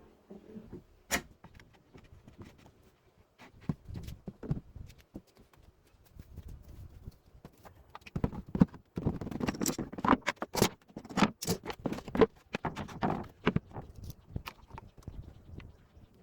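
Irregular clicks, taps and knocks, as of small parts and tools being handled on a work surface. They come in quick clusters and are busiest and loudest in the second half.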